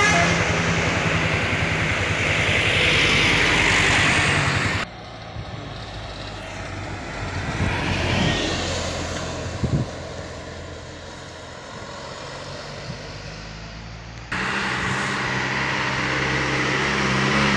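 Road vehicles' engines passing on a bend: a tour bus's engine going by and pulling away, then a light box truck driving past close with a rising whine about 8 seconds in, then a truck's engine approaching with a steady low hum. The sound changes abruptly about 5 and 14 seconds in.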